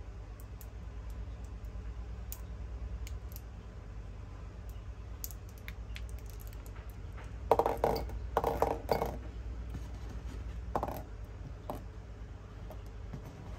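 Small hard objects clicking and clinking: scattered light clicks, then a quick run of louder clinks about seven and a half seconds in and one more about three seconds later, over a steady low hum.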